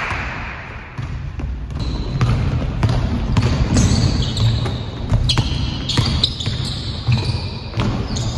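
A basketball bouncing repeatedly on a hardwood gym floor as it is dribbled, with short high squeaks of sneakers on the wood mixed in.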